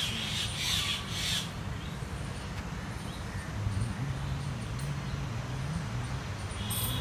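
A crow cawing three times in quick succession, then the low, wavering hum of a vehicle engine from about halfway.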